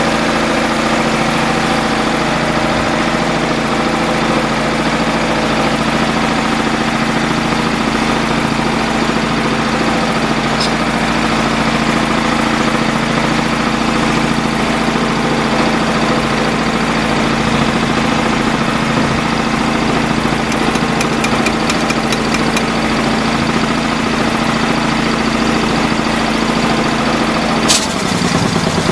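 Engine-driven portable air compressor running steadily at a constant speed. Near the end there is a sharp click and the steady running note drops away.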